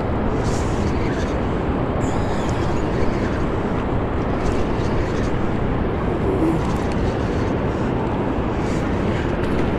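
Steady rushing noise of water pouring through the dam's open spillway, heard over the churned tailwater.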